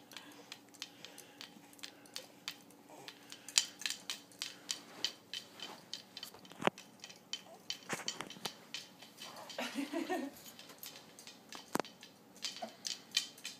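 The metal chain and hooks of a Jolly Jumper baby jumper clink as the baby bounces in its harness: irregular light metallic clicks, about one or two a second.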